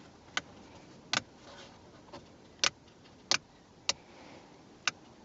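Aftermarket round plastic seat-heater switch, just pressed into its panel hole, giving about six short sharp clicks at uneven intervals as it is worked and clicked.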